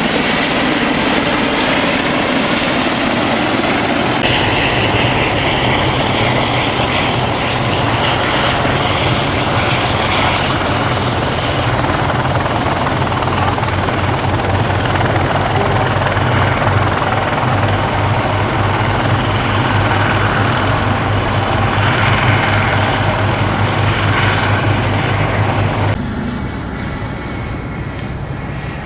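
Eurocopter EC120 helicopter in flight: steady rotor and engine noise with a fast, even rotor beat underneath. The sound drops in level near the end.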